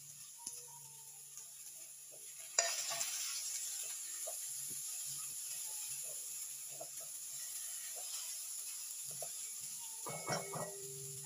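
Chopped peppers and onions frying in hot oil in a dark nonstick pan: a sizzle starts suddenly about two and a half seconds in as the added pieces hit the oil, then goes on and slowly fades. Near the end a spatula clatters and scrapes against the pan as the vegetables are stirred.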